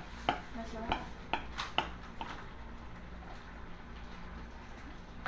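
Kitchen knife clinking and tapping against a plate while slicing through a chocolate cake: a string of sharp clicks over the first two seconds or so, then quieter.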